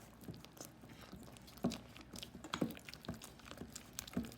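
Freshly activated glue slime being stirred in a bowl, making irregular sticky, wet clicks and smacks as it pulls away.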